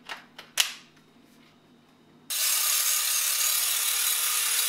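A few light clicks and knocks. Then, about halfway through, an electric hand blender with a whisk attachment switches on and runs steadily, a motor whine under the hiss of the whisk beating egg and sugar in an enamel bowl.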